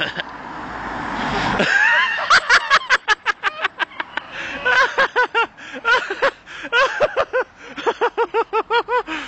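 A car passing, then a person laughing close by in rapid, high-pitched runs of about five 'ha's a second, broken by short pauses.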